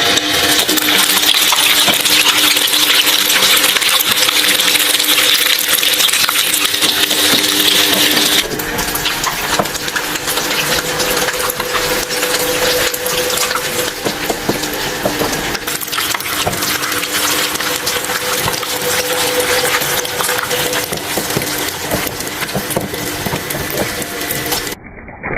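Shredding machine running and chewing through objects: a dense, loud crackle of clicks and crunches over a steady motor hum. The sound changes abruptly twice, as different items go through.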